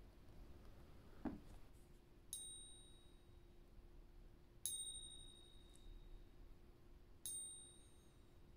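American Silver Eagle silver coin pinged three times, a couple of seconds apart. Each strike gives a clear high ring that dies away over about a second. The rings are recorded for a test of whether the coin is genuine silver.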